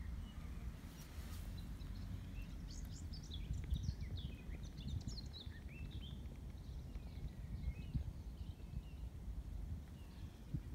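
Small songbirds chirping and twittering in quick high notes for a few seconds, starting a couple of seconds in, over a constant uneven low rumble of wind on the microphone.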